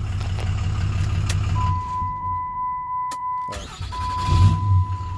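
6.7 L Cummins diesel idling, then shut off about two seconds in while a steady dashboard warning chime sounds. There is a click, and the engine cranks and fires back up about four seconds in, then settles into idle again.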